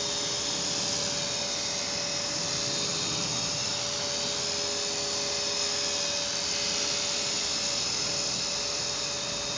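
Small electric radio-controlled helicopter hovering, its motor and rotor giving a steady whine with two held tones over a rushing hum.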